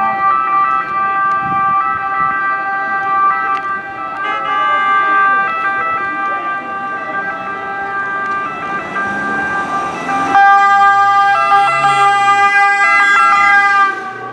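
Several ambulance sirens sounding at once, their steady tones overlapping. About ten seconds in, a louder, closer siren cuts in suddenly as an ambulance passes close by, then fades near the end.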